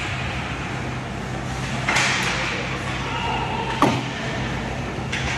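Ice hockey play in an arena: a steady low hum under a noisy hiss of skates on the ice, with a knock about two seconds in and a sharper, louder bang near four seconds as the puck hits the boards.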